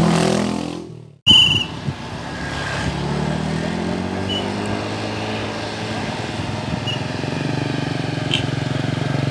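A motor vehicle's engine running. It cuts out about a second in, and after a brief high chirp a steady engine hum comes back and grows louder toward the end as a vehicle approaches on the road.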